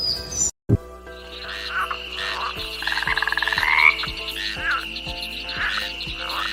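Frogs calling: repeated croaks and a pulsed trill that rises in pitch around the middle, over a steady high-pitched trill.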